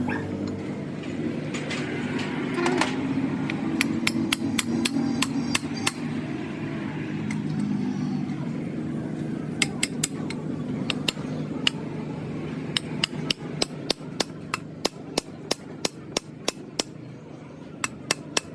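Repeated sharp taps of a hammer on metal, scattered at first and then coming at about two to three a second in the second half, over a steady low machine hum.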